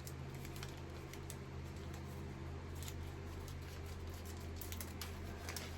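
Faint small clicks and light rustling of a small plastic packet from a toy craft kit being handled and opened, over a steady low hum.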